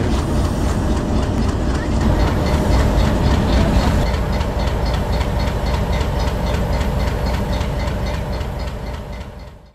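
Diesel engine of an HBU-20 locomotive running while it stands: a steady low rumble with an even beat of about three or four knocks a second, fading out near the end.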